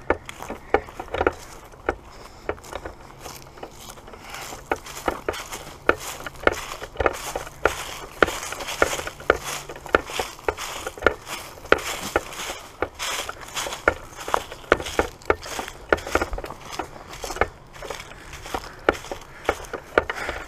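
Footsteps through dry underbrush: dead leaves and twigs crackling and snapping underfoot, many irregular crackles without a break.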